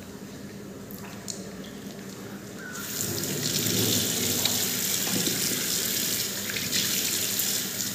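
Bathroom tap turned on about three seconds in, then water running steadily from the faucet into a washbasin while lather is rinsed off a face by hand.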